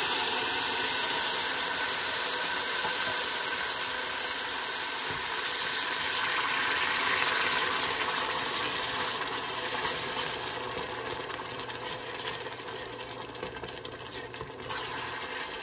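Coconut milk sizzling loudly as it hits hot curry paste and coconut oil in a stainless steel pot, the hiss slowly dying down. In the last few seconds a metal slotted spoon clicks and scrapes against the pot as the mixture is stirred.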